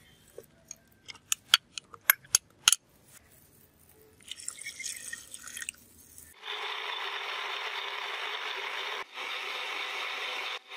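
A metal spoon clinks several times against a glass bowl and a plastic blender jar as tomato slices are scraped in, followed by water pouring into the jar. Then a Kenwood blender starts running steadily, pureeing the tomatoes, with two brief cut-outs near the end.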